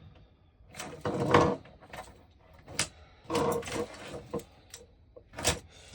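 Rustling, scraping and clattering as a set of Christmas lights is handled. There are several scrapes, the loudest about a second in, and sharp clicks near three seconds and again near five and a half seconds.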